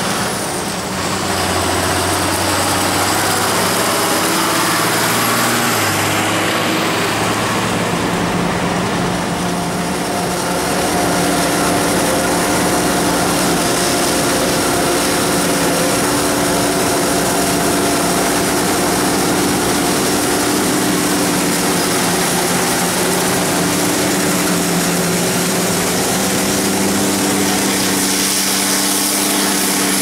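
A John Deere 7500 self-propelled forage harvester and the tractors hauling its silage trailers, running steadily while chopping maize. A diesel drone whose note shifts a few times.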